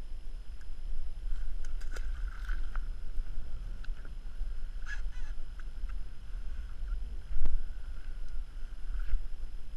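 Wind on the microphone and water lapping against a small aluminum boat on choppy water, with scattered clicks and knocks. The loudest knock comes about seven seconds in.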